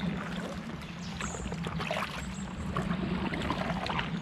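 Kayak paddle strokes in calm canal water: the blades dip and pull with small splashes and drips, over a steady low hum.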